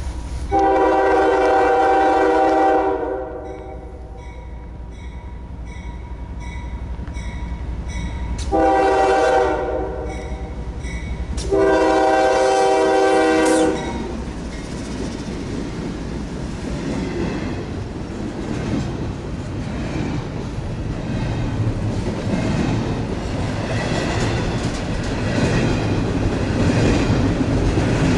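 A CSX diesel freight locomotive sounds its multi-chime air horn in three blasts, long, short, long, with a bell ringing steadily between them. The locomotives then pass close by, and the double-stack container cars follow, their wheels rumbling and clattering over the rail joints, growing louder toward the end.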